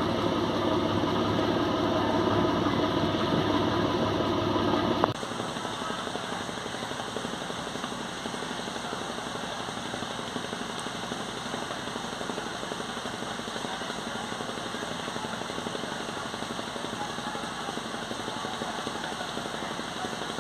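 Boat engine running steadily for about five seconds, then a sudden cut to a quieter, steady rushing noise.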